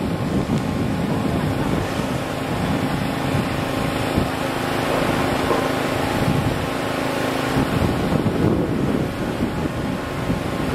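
Pump running with a steady hum, draining floodwater out of a flooded basement, with wind buffeting the microphone.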